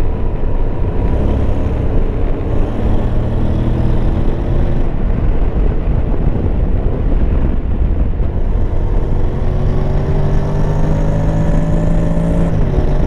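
Honda Forza 750's parallel-twin engine and exhaust pulling under way. Its pitch climbs steadily twice, then drops suddenly near the end as the dual-clutch gearbox changes gear or the throttle rolls off.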